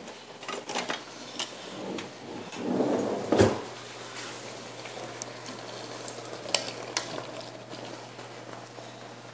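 Spatulas stirring and scraping chicken pieces, potatoes and bell pepper through a thick sizzling sauce in an enamelled pot, the food simmering steadily. Sharp knocks of the spatula against the pot come now and then, the loudest about three and a half seconds in and two more near seven seconds.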